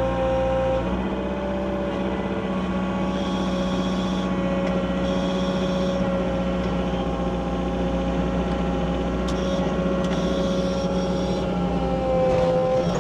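Wacker Neuson ET65 mini excavator's diesel engine running steadily, with a steady whine held over it.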